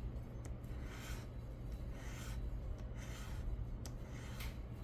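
Scratch-off lottery ticket being scratched, the coating rubbed off in soft, intermittent rasping strokes over a low steady hum.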